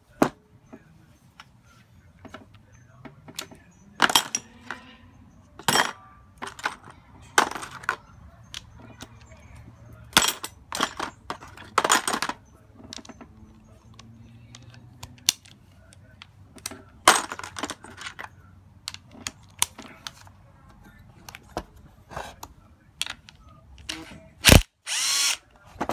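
Metal clicks, clinks and knocks as starter motor parts are handled and fitted together on a wooden bench. Near the end comes one sharp knock, then a short burst of a power driver spinning a socket onto the solenoid terminal nut.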